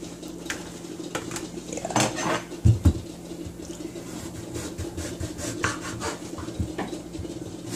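Kitchen work on a bamboo cutting board: a few knocks about two to three seconds in as things are set down, then repeated small ticks and scraping of a knife and a cantaloupe slice against the wooden board.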